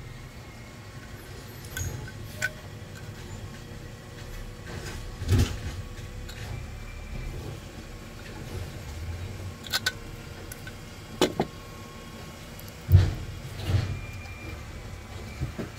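Scattered metallic clinks and knocks of hand tools and a loose exhaust muffler being handled while the muffler is unbolted from a lawnmower engine. There are about eight irregular knocks, the loudest near the end, over a low rumble.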